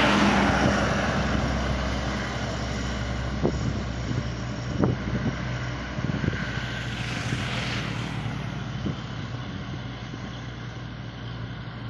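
Large intercity bus's diesel engine drone as the bus goes past and pulls away, the sound slowly fading, with a few short knocks in the middle.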